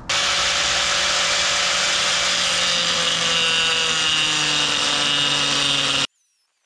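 Angle grinder cutting into a boat's wooden transom, running loud and steady, its pitch slowly sagging as it works under load. It stops abruptly about six seconds in.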